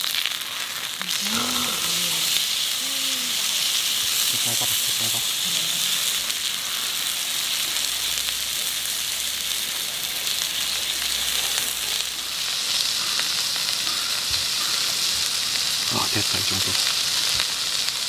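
Striploin steak sizzling as it sears on a hot pan, a steady frying hiss.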